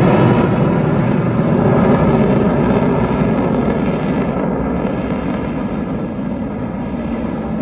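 Fighter jet flying away overhead, its loud jet-engine rumble slowly fading.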